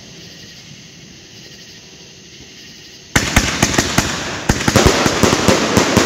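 A 25-shot, 500-gram consumer fireworks cake (FSF Fireworks Dawg Pound, red and white strobe and mine effects) starts firing about three seconds in: shots in quick succession over dense crackling and popping.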